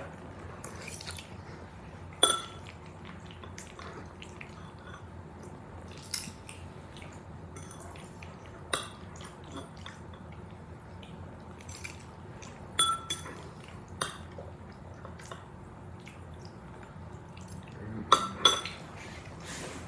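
A metal fork clinking against a ceramic bowl of mac and cheese while eating: scattered single sharp clinks every few seconds, with a quick run of several clinks near the end, over a steady faint room hum.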